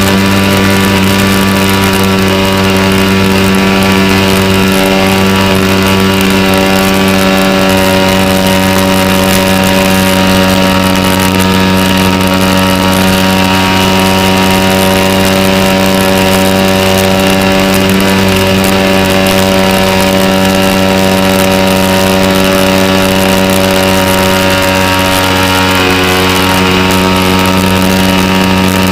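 Sig Kadet Senior model airplane's engine running at a steady pitch and throttle setting, heard from the onboard camera.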